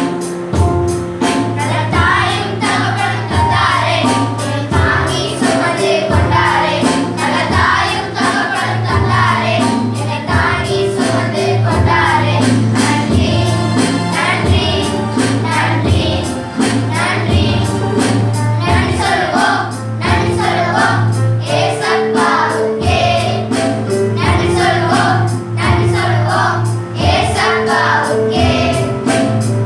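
Church choir singing a gospel song over held keyboard notes and a steady percussion beat.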